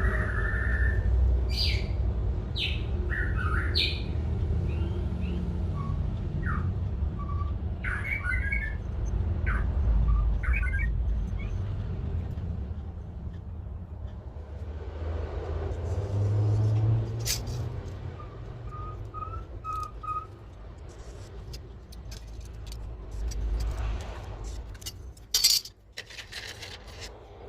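Birds chirping on and off over a steady low rumble, with scattered sharp clicks.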